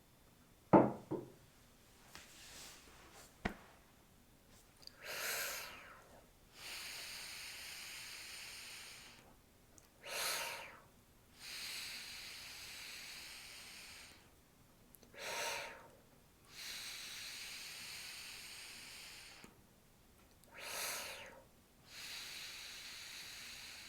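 A person doing rescue breathing through pursed 'straw' lips, four times over: a one-second sipped breath in, then a steady fine stream of air blown out for about three seconds. The breathing exercise keeps the vocal cords apart to stop a tickle cough. A short knock comes about a second in and a click a few seconds later.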